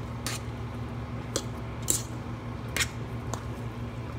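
A bare hand mixing and crumbling cornbread with sautéed vegetables in a pot: soft squishing with about five short clicks spread through it.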